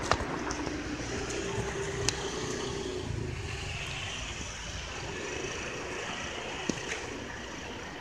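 Steady rushing hum of distant street traffic, with a few sharp clicks: one at the start, one about two seconds in, and one near the end.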